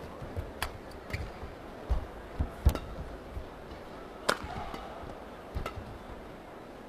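Badminton rally: rackets striking the shuttlecock in sharp cracks about every second, the loudest one about four seconds in, with low thuds of footwork on the court between them.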